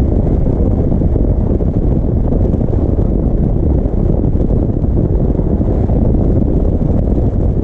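Steady wind rush buffeting the microphone of a motorcycle riding on a paved road, with engine and road noise mixed in underneath.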